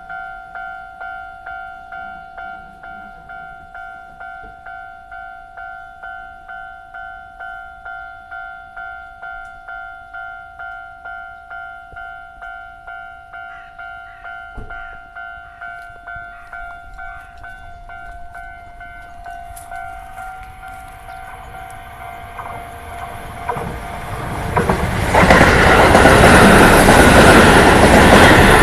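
Japanese level-crossing warning bell ringing steadily, about two dings a second on two pitched tones. A Keio Line train then approaches and passes very loudly from about 25 s in, its wheels clattering over the rails and drowning out the bell.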